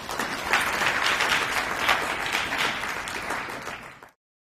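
Audience applauding, fading down and then cut off suddenly about four seconds in.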